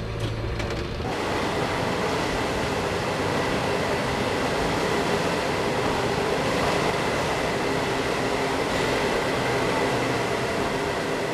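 Metro train in a depot train wash: a steady mechanical running noise with a constant high whine, starting about a second in.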